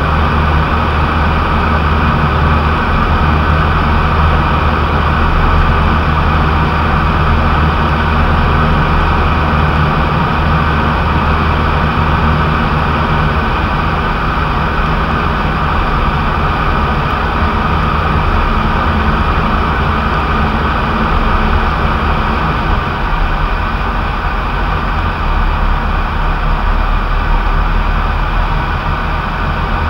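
Light aircraft's engine and propeller running steadily in flight, heard inside the cockpit as a loud, even drone with wind noise.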